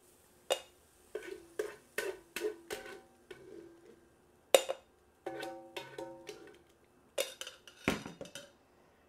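Metal tongs clinking against a frying pan and a stainless steel bowl as cooked onions are lifted across. There are about a dozen taps, each leaving a brief metallic ring; the loudest clack comes about halfway through and a quick run of taps comes near the end.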